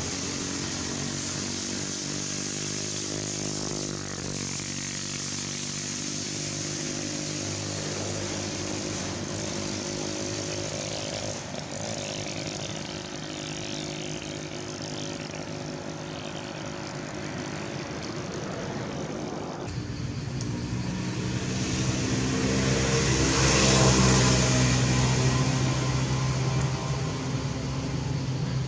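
A motor vehicle engine running steadily. It grows louder from about two-thirds of the way in, peaks as if passing close, then eases off near the end.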